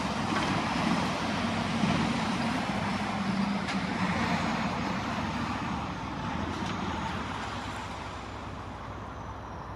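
Diesel locomotives of an eastbound CPKC freight train running steadily with a low drone, growing gradually quieter over the last few seconds.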